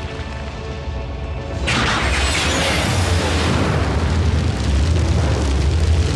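Held music notes, then about two seconds in a large animated-explosion sound effect goes off, much louder. It becomes a long, low rumbling blast that continues over the music.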